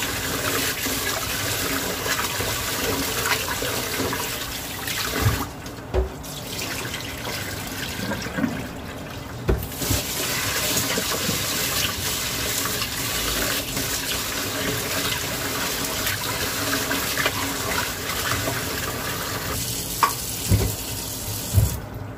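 Tap water running into a sink while rice is washed, the flow easing off twice briefly, with a few dull knocks of the pot or hands against the sink.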